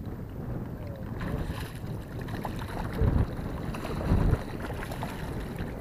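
Strong wind buffeting the microphone over choppy lake water as a hooked bass is reeled to the boat. Two heavy low thumps come about three and four seconds in, as the fish splashes at the surface beside the boat.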